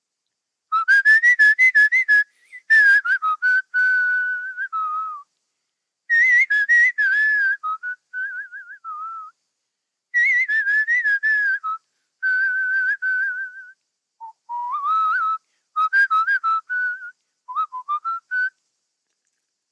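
A man whistling a tune in four phrases with short pauses between them. The notes waver, and a quick trill comes near the middle.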